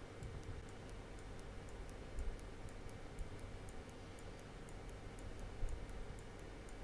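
Faint, fast, regular high-pitched ticking, about four ticks a second, with two soft knocks, one about two seconds in and one later.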